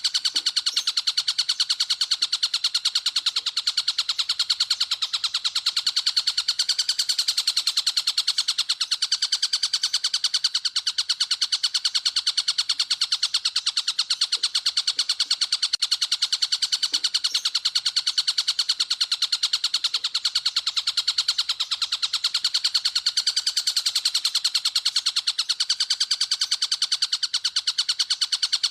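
Songbird tutor (masteran) recording: a continuous, very rapid high-pitched pulsing trill, held at an even pitch and level.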